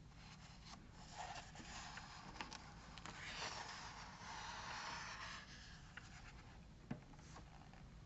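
Faint rustle and slide of a paper page of a hardcover picture book being turned by hand, loudest partway through, with a few light ticks of paper and fingers.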